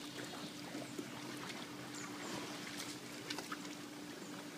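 Faint swimming-pool ambience: a steady low hum with light water lapping and scattered small ticks.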